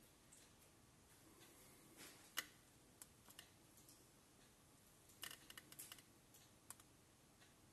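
Near silence with a few faint, short clicks and taps from handling the tablet. One sharper click comes about two and a half seconds in, and a quick cluster follows about five to six seconds in, as a hand reaches the tablet's side.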